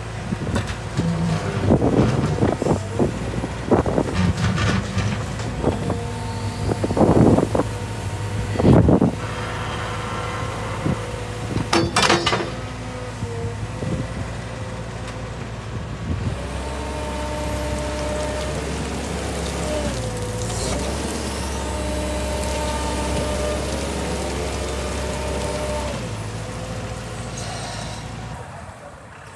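Caterpillar M315D wheeled excavator's diesel engine running steadily, with a series of knocks and short hissing bursts over the first dozen seconds, the loudest hiss about twelve seconds in. In the second half the machine drives off, a whine rising and falling in pitch over the steady engine note.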